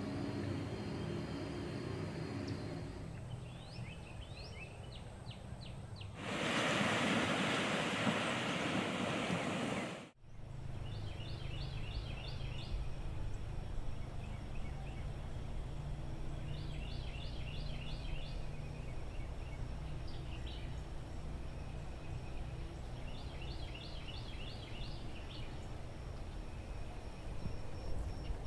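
A songbird singing short, fast trills of repeated high notes every five to six seconds over a steady low outdoor rumble. About six seconds in, a loud hiss takes over for about four seconds and cuts off suddenly.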